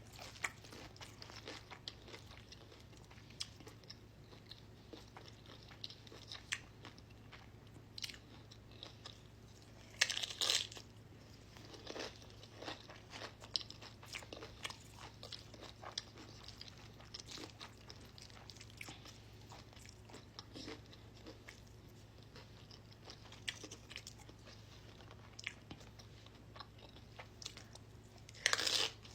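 A person chewing and crunching crisp tortilla chips. Small crunches run throughout, with two louder bursts of crunching about ten seconds in and just before the end.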